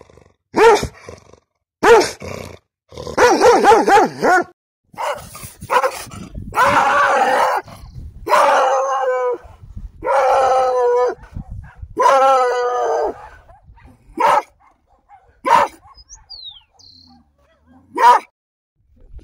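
Dogs barking and howling: a run of short barks, then four long drawn-out howls of about a second each, then a few single barks.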